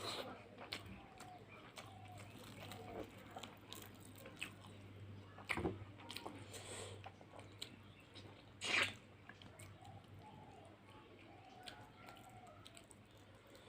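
A person eating fish curry with rice close to the microphone: soft chewing with small wet mouth clicks and smacks, and two louder sharp sounds about five and a half and nine seconds in.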